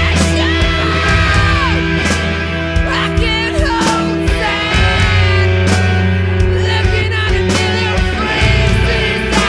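Post-hardcore rock band recording: distorted electric guitars, bass and drums playing, with sung vocals.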